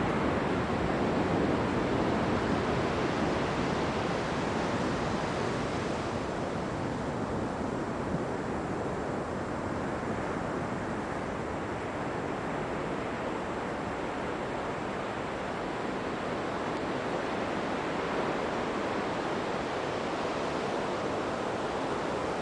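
Steady rush of ocean surf on a beach, with wind on the microphone; it eases slightly after the first few seconds.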